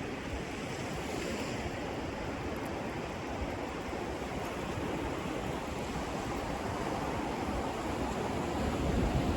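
Ocean surf washing onto the beach, with wind buffeting the microphone in a gusty low rumble; it grows a little louder near the end.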